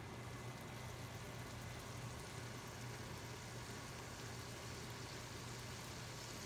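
Razor clams and onions sizzling and bubbling in a hot pot: a steady hiss, with a low steady hum underneath.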